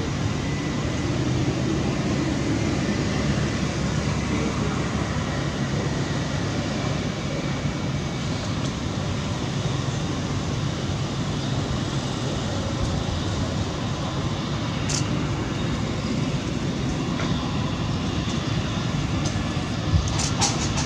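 Boeing 787-8 jet engines running at taxi power as the airliner rolls onto the runway: a steady, even rumble.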